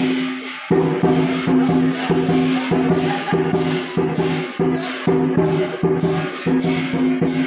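Chinese lion dance percussion, drum, gong and cymbals, beating a steady rhythm of about three strokes a second, each stroke ringing on.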